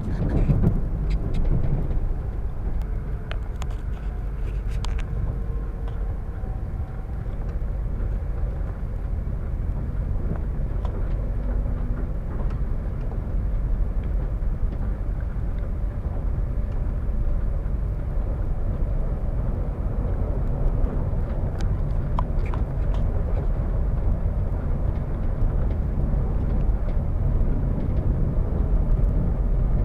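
Suburban passenger train running along the track: a steady low rumble with faint humming tones and a few sharp clicks.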